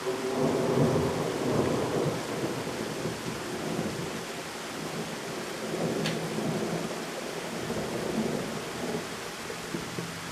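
Thunder rumbling over steady pouring rain. The rumble swells suddenly at the start, is loudest for the first couple of seconds, then keeps rolling more softly under the rain hiss.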